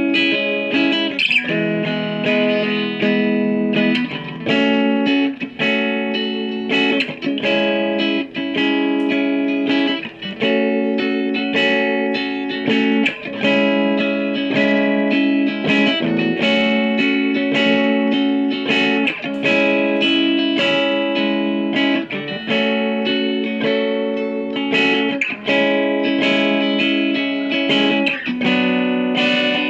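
Krait Telecaster electric guitar played through a Boston Engineering M15 guitar amplifier: a steady run of picked chords and notes, each ringing on until the next is struck.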